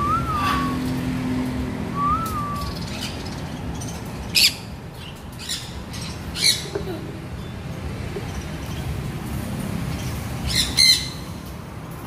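Parrots calling in an aviary: two short whistles that rise and fall, near the start and about two seconds in. Then loud, harsh squawks about four, six and a half, and eleven seconds in, the last a quick double.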